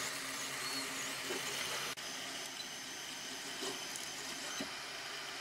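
3D printer running a print: a steady fan hiss with short, high whining chirps from the stepper motors as the print head moves.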